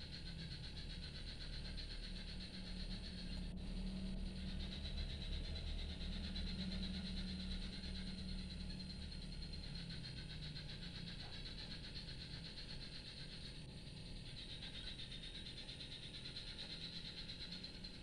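Recorded swift calls: a continuous, dense high twittering chatter. A steady low hum runs underneath.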